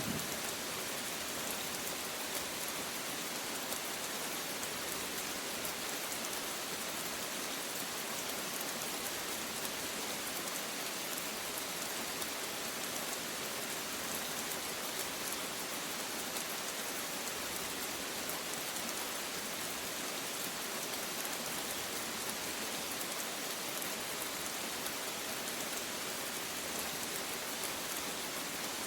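Steady rain falling: an even hiss of many drops, with no thunder in it.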